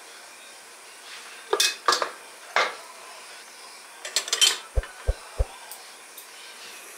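Hard household objects being handled: scattered clinks and knocks, then three quick low thumps about five seconds in.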